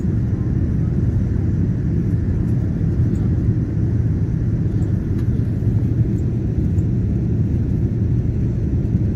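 Steady low rumble of an airliner cabin in the climb after takeoff: engine and airflow noise heard from inside the cabin.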